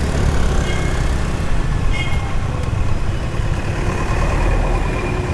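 Steady low rumble of vehicle engine and wind noise while riding in road traffic, with a brief high beep about two seconds in.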